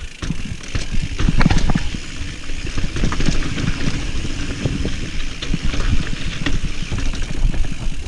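Mountain bike rolling over a rough trail: a continuous tyre rumble with many sharp knocks and rattles as it goes over bumps.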